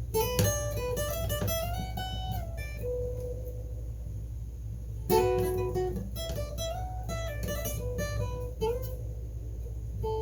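Blues guitar lead: two phrases of picked single notes with string bends, the second starting about halfway through, over a steady low hum.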